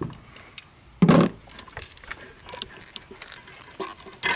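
Small clicks, creaks and knocks of hands pulling a plastic engine intake duct and its rubber hose connections loose, with one louder bump about a second in.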